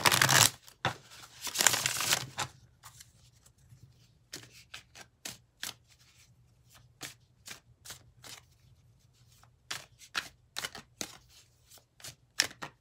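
A deck of tarot/oracle cards being shuffled by hand: two longer rustling runs in the first couple of seconds, then a string of short card snaps and taps.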